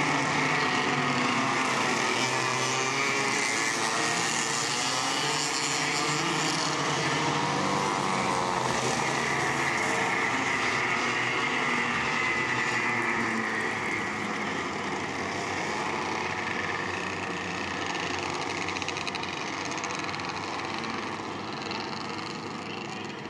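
Several racing kart engines revving and easing off as the karts lap the circuit, their pitch rising and falling over and over. The engines grow a little fainter about two-thirds of the way through.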